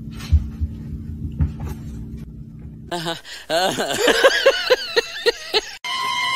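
A few soft thumps over a low hum, then a lion roaring: a run of calls that ends in about five short, evenly spaced grunts. Near the end it cuts to a steady high electronic tone.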